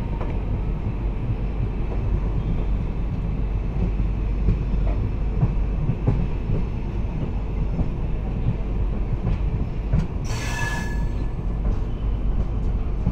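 Moving train heard from on board: a steady low rumble of wheels on the track with faint scattered knocks, and a brief high-pitched screech about ten seconds in.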